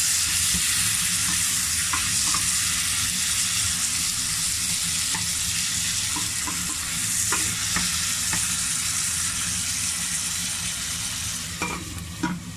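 Chopped tomatoes and onions sizzling in a hot nonstick pot while a wooden spoon stirs them, with small scrapes and taps of the spoon. Near the end the sizzle drops and a glass lid clinks onto the pot.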